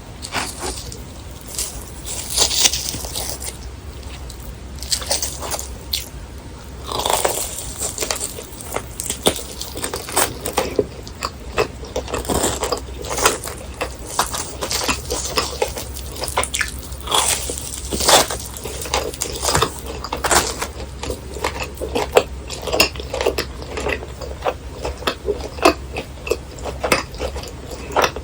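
Close-miked biting and chewing of crispy fried snacks: repeated irregular crunches and crackles, in clusters at each bite, over a faint steady low hum.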